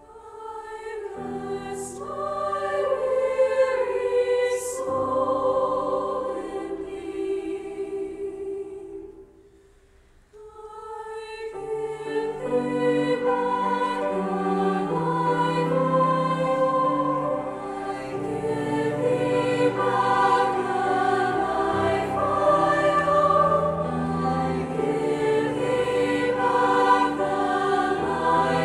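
Women's choir singing a slow choral anthem, accompanied by piano and cello. The music dies away to a near-silent pause about nine seconds in, then the voices come back in with low notes beneath them and build.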